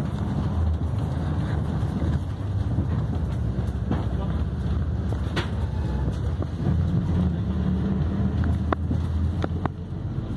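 Steady low rumble of a moving vehicle's engine and road noise heard from inside the cabin, with a few light clicks in the second half.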